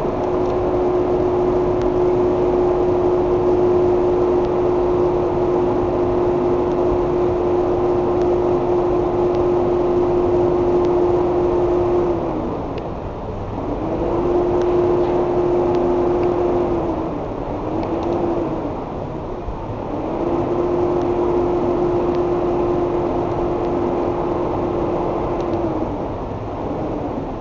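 TIG welding arc on a chrome motorcycle muffler end, welding up a crack: a steady buzzing hum over a hiss. The hum dips and stops about twelve seconds in, then starts and stops a few more times as the arc is broken and struck again.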